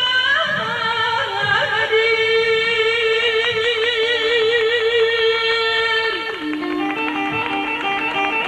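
Live Turkish band music for a dancer. A long note with heavy vibrato is held for about four seconds, then a run of short plucked-string notes starts near the end.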